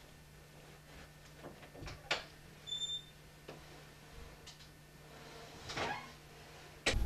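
Faint, scattered knocks and bumps, like movement and a door in a small room, over a low steady hum, with a brief high squeak about two and a half seconds in.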